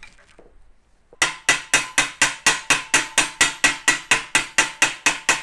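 Wooden mallet tapping a brass trombone bell-section tube to rough out dents, a steady run of sharp strikes about four a second, each with a short metallic ring. The tapping starts about a second in.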